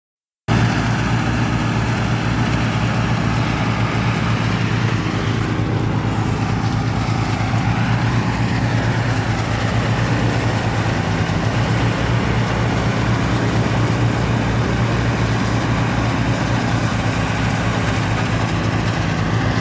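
Engine-driven rice threshing machine running steadily, its motor putting out a fast, even chugging.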